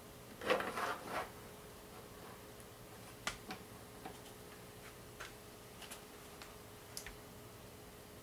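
A hand handling an LED dashlight's aluminum housing and visor: a short rubbing scuffle just after the start, then a scattering of small, sharp clicks and ticks spread over the next few seconds.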